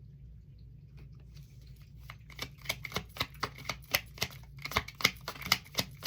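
Tarot cards being shuffled by hand: a quick run of sharp card snaps and clicks, faint at first and growing louder and denser after about two seconds.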